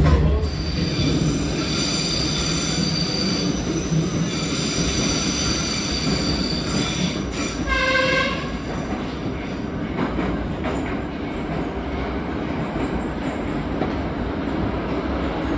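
Moscow Metro retro train of old 'Nomernoy'-series cars running, with a steady rumble of wheels on rail. High-pitched wheel squeal sounds for the first several seconds. A short horn-like tone comes about eight seconds in.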